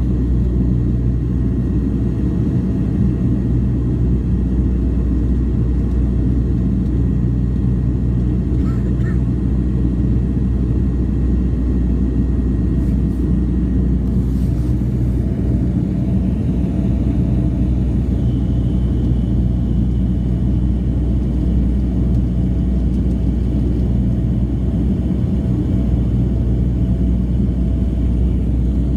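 Dash 8 turboprop's engines and propellers running steadily during the climb after takeoff, heard inside the passenger cabin: a constant low drone with several held tones.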